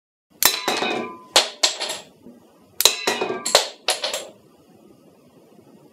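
Homemade wooden clothespin pistol snapping and clicking as it is worked and fired. There are about ten sharp clicks in two groups of five, the first group starting about half a second in and the second about three seconds in, some with a brief ring after them.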